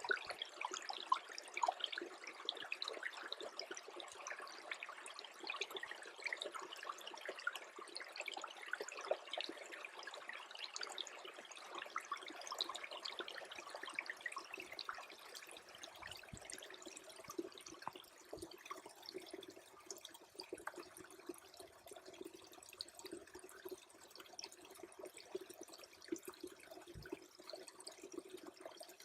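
Small freezing stream trickling, a dense patter of little gurgles and drips that thins out about halfway through.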